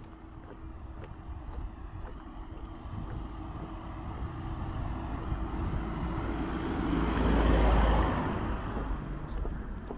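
A motor vehicle driving past. Its engine and tyre noise builds over several seconds, is loudest about seven and a half seconds in, then fades.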